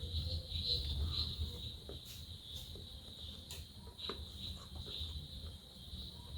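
Steady high-pitched chirring of crickets, pulsing gently, over a low rumble, with a few soft clicks about two to four seconds in.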